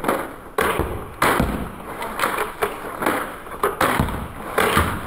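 Two repeating crossbows, a 3D-printed Mini Adder and a Stinger Compact, rapid-fired and recocked, played back slowed down. The result is a series of loud sharp clacks and thuds, roughly one every half second to second, each dying away slowly.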